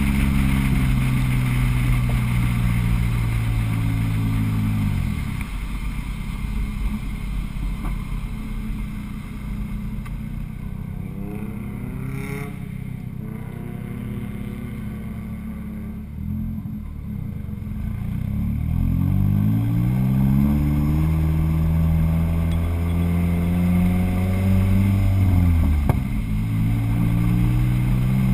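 Car engine and exhaust heard from a camera on the car's flank while driving. The engine holds a steady pitch, drops about five seconds in as the car slows, and runs low and quieter for several seconds. It then revs up steadily from about halfway, dipping briefly near the end before climbing again, as at a gear change.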